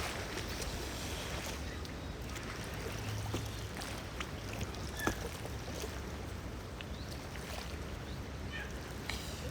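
Lakeside ambience: a steady rush of wind and lapping water, with a few faint clicks.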